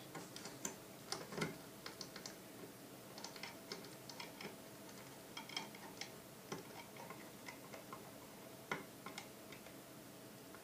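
Quiet, irregular small clicks and ticks of a small screwdriver turning and seating the trigger-guard screws on a Weihrauch HW80 (Beeman R1) air rifle.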